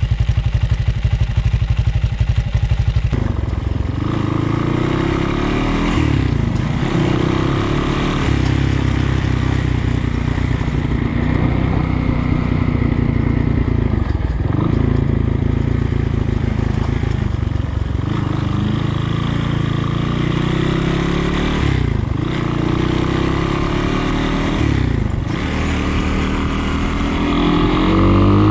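1980 Honda XR200 dirt bike's single-cylinder four-stroke engine idling steadily for a few seconds, then running under way on a ride, its pitch climbing and dropping back several times as the throttle and gears change.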